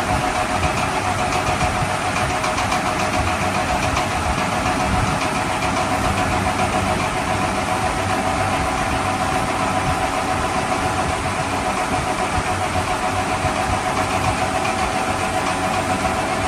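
A toy vehicle's motor running steadily: a continuous mechanical hum with a steady whine and no pauses.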